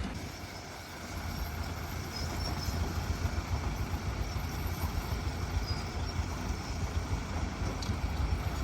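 Heavy earth-moving machine's engine running, a low steady rumble.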